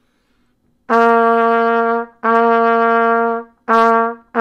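Trumpet playing one repeated note, each note tongued separately. There are two long half notes of just over a second each, then a short quarter note, and a second quarter note begins right at the end.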